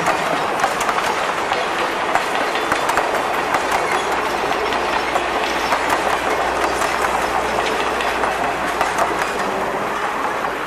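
Passenger railroad cars rolling past at close range: a steady rumble of wheels on rail, with a running clickety-clack of the wheels over the rail joints. The sound eases off slightly near the end as the last car goes by.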